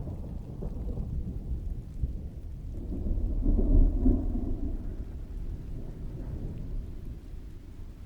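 Distant thunder rolling under steady heavy rain. The low rumble swells to a peak about four seconds in, then dies away.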